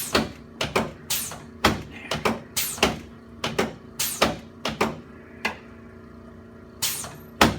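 A rapid, irregular series of sharp clacks and knocks from a chiropractic treatment on a patient lying on the treatment table, about two or three a second. They pause about five and a half seconds in, then two more come near the end, the last the loudest.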